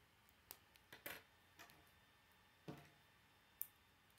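Plastic K'nex rods and connectors clicking as they are handled and snapped together: five or six short, sharp clicks, irregularly spaced.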